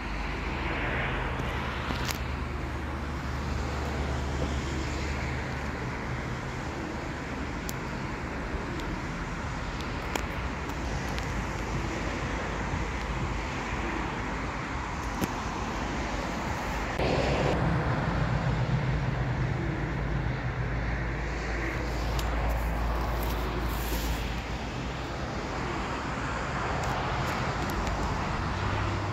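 Steady outdoor rushing noise with a low rumble beneath running wind turbines. A louder low rumble swells about 17 seconds in and eases off over a few seconds.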